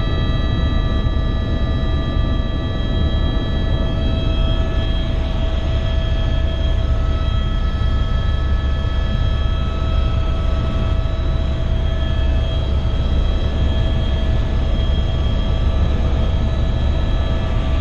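Helicopter in flight heard from inside the cabin: a steady low rotor drone with several constant whining tones from the engine and gearbox over it.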